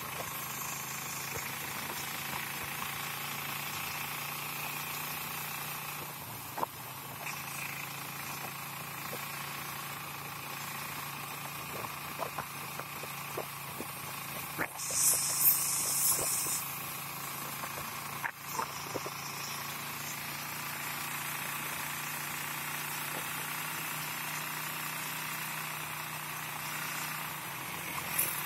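Motorcycle-sidecar tricycle under way, heard from the sidecar: its engine runs with a steady drone under road noise, with scattered rattles and knocks. About halfway, a shrill high-pitched squeal sounds for about two seconds, the loudest thing here.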